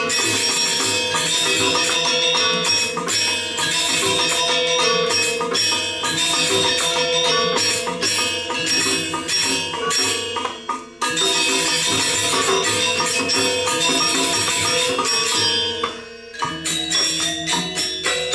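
Balinese gamelan ensemble playing Legong accompaniment: dense ringing metallophone strokes with cymbal clashes, broken by a brief drop about eleven seconds in and a short pause near the end before sharper separate strokes resume.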